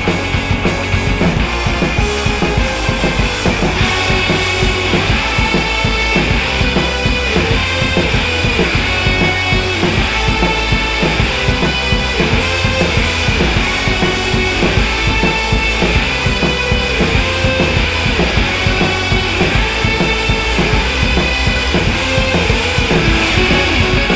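Rock music with drums and guitar, playing steadily at a loud level.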